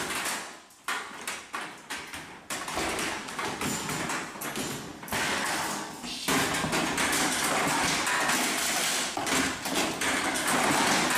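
Metal folding chairs clattering and knocking against each other and the floor as a person crawls through a pile of them. Separate knocks at first, then denser, louder clatter from about two and a half seconds in, louder again after about six seconds.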